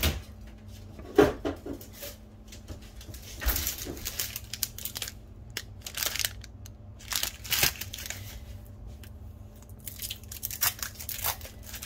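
Plastic packaging of sliced cheese crinkling and rustling as it is handled and a slice is peeled out, in scattered spells with a few sharp clicks and quieter gaps between.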